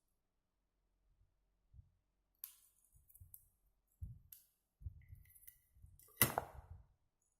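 Scattered light knocks and clicks of things being handled on a workbench, with dull thumps and a few sharp clicks, the sharpest about six seconds in.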